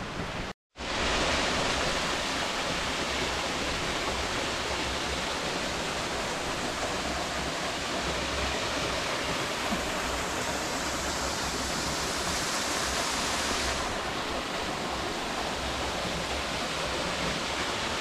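Small waterfall pouring into a rock pool: a steady rush of falling, splashing water, after a brief gap of silence about half a second in.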